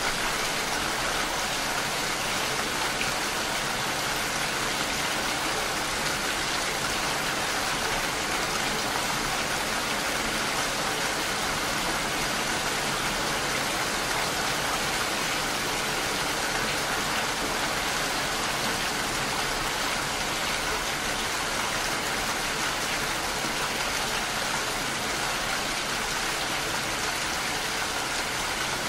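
Steady rain falling: an even, unbroken hiss of many drops, with no single drops or gusts standing out.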